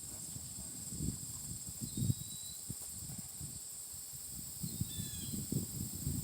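Steady high-pitched insect chorus outdoors, with a couple of faint short chirps about two and five seconds in and irregular low rumbles underneath.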